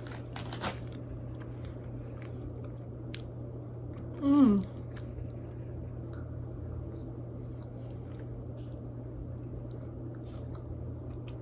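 Close-mic'd mouth noises of someone chewing cheese and crackers: small crunches and clicks throughout, with a short falling vocal sound about four seconds in. A steady low hum runs underneath.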